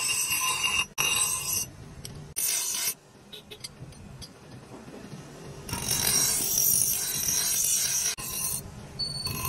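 Bench grinder wheel grinding a steel axe head held in tongs: a harsh, hissing grind in several separate passes, the longest about two and a half seconds, with quieter gaps between them where the head is lifted off the wheel.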